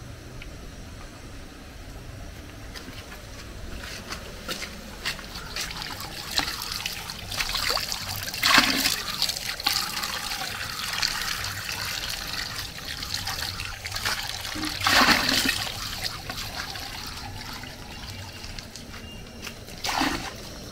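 Water sloshing and trickling, with scattered clicks and knocks and three louder splashes, about eight and a half, fifteen and twenty seconds in.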